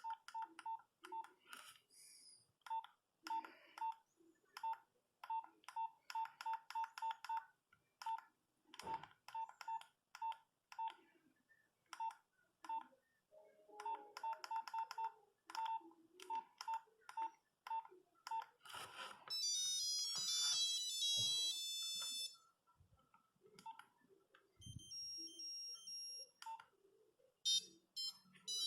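A Nokia 8210 mobile phone's keypad is pressed over and over, each press a click with a short beep, at first singly and then in quick runs while the menus are scrolled. About 19 seconds in, short monophonic ringtone melodies start playing from the phone's speaker: one for a few seconds, a second beeping tone a little later, and another near the end.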